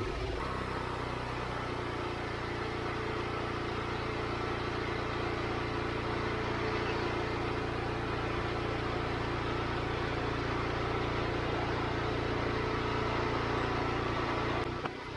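Wood-Mizer LX25 sawmill's engine running steadily with a low drone, stopping abruptly near the end.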